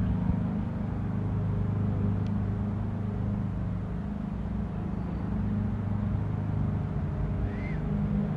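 Steady low hum of a running engine, with one brief high chirp near the end.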